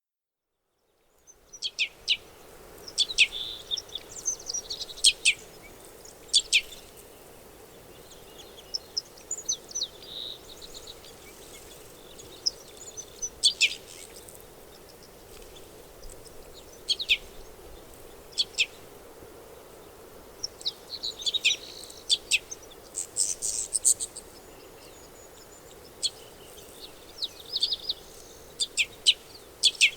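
Red crossbills calling: short, sharp call notes, often several in quick succession, in scattered clusters over a faint steady background hum.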